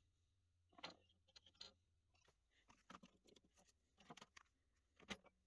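Near silence with a few faint, scattered clicks and taps from hands handling the circuit board and bench leads.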